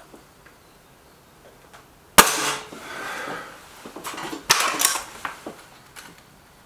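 Stoeger RX20 S2 air rifle firing a shot: a single sharp crack about two seconds in with a brief ringing tail, followed about two seconds later by a second loud mechanical clack with a short rattle.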